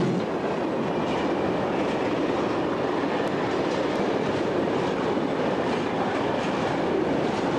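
Freight tank wagons rolling along the yard tracks, their wheels on the rails making a steady rolling noise.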